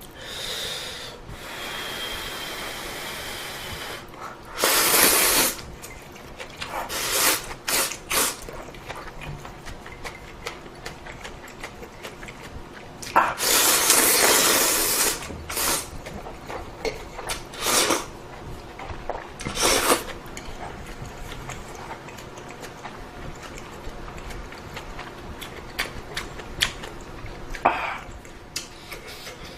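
Close-miked eating of ramen: a string of noisy slurps of noodles and broth, the longest lasting a couple of seconds just before the middle. Small clicks and chewing sounds fall between the slurps.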